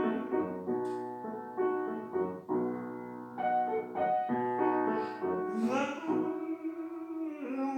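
Piano playing an instrumental passage between the sung lines of a song, a series of sustained chords and notes.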